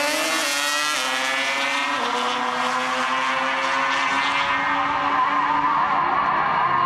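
Drag-racing ATV engine at full throttle on the launch, its pitch climbing and then dropping sharply twice in the first two seconds as it shifts up. It then holds a steady high note that grows duller as the quad pulls away down the strip.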